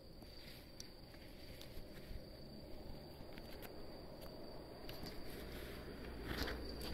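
Night insects trilling, one steady high tone that holds throughout, with a few faint clicks and a brief louder rustle near the end.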